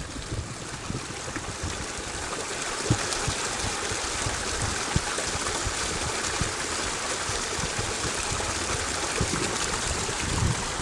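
Mountain stream running steadily, a constant rushing of water, with occasional low bumps of wind or handling on the microphone.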